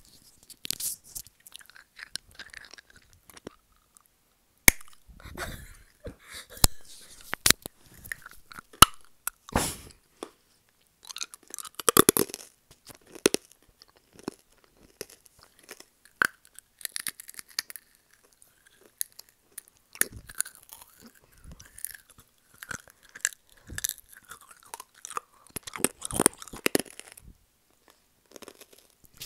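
Close-up mouth sounds: chewing, crunches and wet clicks made right against a wired earphone held at the lips, coming in irregular bursts with short pauses.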